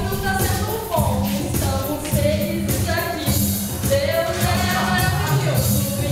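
Dance music with a steady beat and a singing voice over it.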